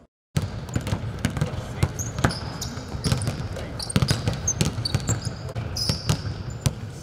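Basketballs bouncing on the court in irregular knocks, with short high sneaker squeaks, in a large empty arena.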